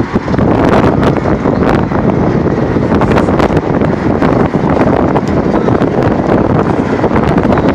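Wind buffeting the phone's microphone: a loud, steady rumbling rush with rough crackling gusts throughout.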